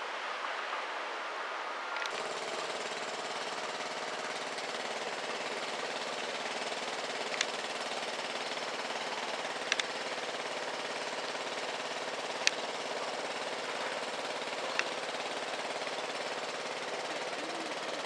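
Construction-site machinery running with a steady, dense mechanical rattle, broken by a few sharp metallic clanks every two to three seconds.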